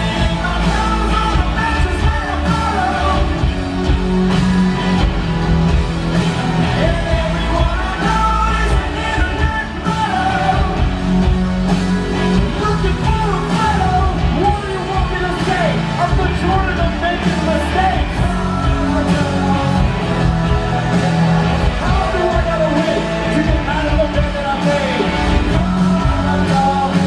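Live rock band playing loudly: a male vocalist singing over electric guitars and a drum kit, heard from the audience in a concert hall.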